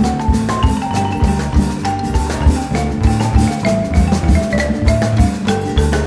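Background music with a steady beat and a melody of short, struck notes.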